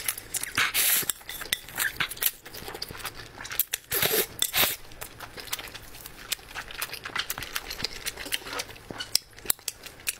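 Close-miked eating of saucy noodles and squid: wet chewing and mouth clicks, with two longer slurps, about a second in and about four seconds in.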